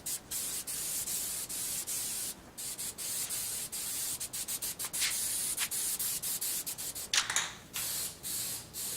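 Aerosol spray can of SEM primer hissing in passes over a plastic bumper cover, with many brief stops and a longer break about two and a half seconds in. The spray goes uneven near the end, which the painter puts down to the can "floating up" on him.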